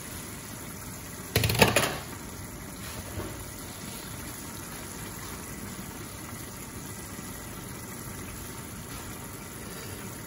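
Blended pepper sauce simmering and bubbling in an uncovered pot, a steady bubbling hiss. About one and a half seconds in there is a brief loud clatter.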